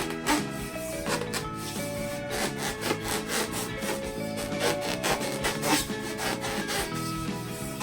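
Rubber balloons being rubbed and squeezed in repeated short scraping strokes, a few per second, over background music.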